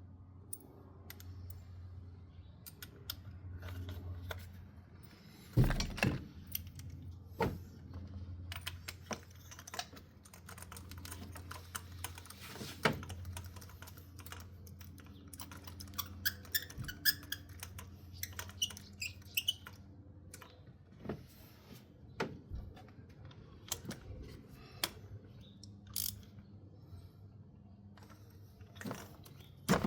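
Scattered clicks, taps and knocks of hand tools and parts in a car's engine bay during a spark plug change, irregular and a few a second at times, over a faint low hum.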